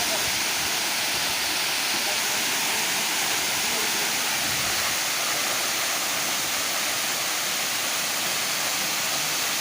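Steady rushing of water falling at Ksheera waterfall, an even hiss.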